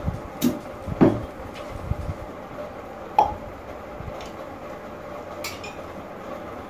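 Cutlery clinking against a bowl and plates: a few separate clinks, the sharpest about a second in and about three seconds in.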